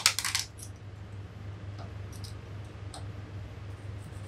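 Handling noise at an industrial sewing machine as fabric is worked under the presser foot: a quick burst of sharp clicks and rustling at the start, then a few light clicks, over a steady low hum.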